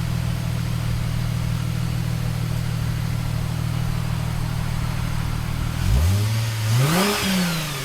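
Plymouth Prowler engine idling steadily through its exhaust, then revved once about six seconds in, its pitch rising and falling back toward idle.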